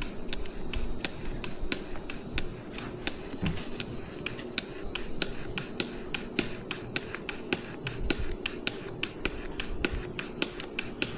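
A cheap hand-operated oil pump on a gear-lube bottle being worked stroke after stroke, clicking about four times a second as it pushes 90-weight gear lube through a hose into an outboard's lower unit.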